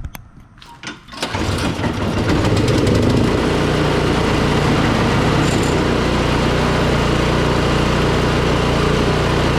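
A few clicks, then the Toro Power Clear 721E snowblower's 212cc OHV four-stroke engine starts about a second in, picks up speed and settles into steady running. It is being run to warm and thin the oil before the drain plug comes out for an oil change.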